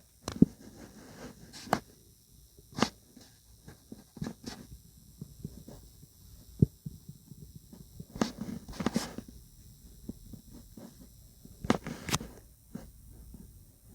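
Irregular sharp taps and clicks with soft rustling between them, a few louder knocks scattered through.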